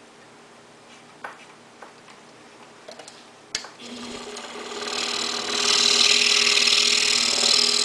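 A few light clicks as the blade is fitted in the upper clamp of an Excalibur scroll saw. About four seconds in the saw starts and builds to a steady run, a hum under a loud high hiss, as the blade cuts through the thin wooden blank along the pattern line.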